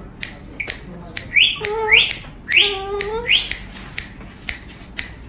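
Sharp finger snaps about twice a second, keeping a beat, with a pet parrot giving several short rising calls in between.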